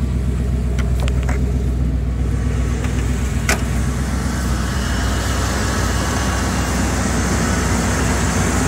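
1990 Ford F-250 pickup engine idling steadily, just started on its freshly installed alternator and battery and running smoothly. A sharp click comes about three and a half seconds in, and the engine sounds a little brighter from about halfway through.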